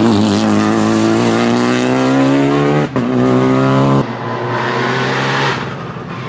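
Renault Clio Rally5 rally car's turbocharged four-cylinder accelerating hard, its engine note climbing, a quick upshift about three seconds in, then climbing again. About four seconds in the driver lifts off, and the sound drops and fades as the car goes past.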